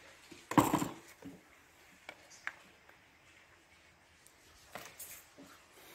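A short, loud noise about half a second in, then a few light clicks and taps as a valve stem seal is handled and set by hand onto a valve guide in a diesel truck cylinder head.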